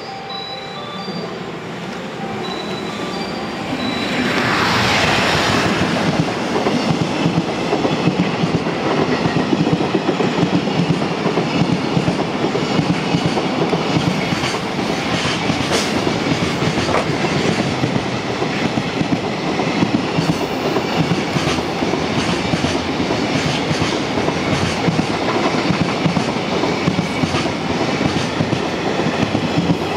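JR Freight EF210 electric locomotive and its long container freight train passing close at speed. A sweep falling in pitch comes as the train arrives about four seconds in, then a steady rumble and rapid clickety-clack of the wagon wheels over the rail joints.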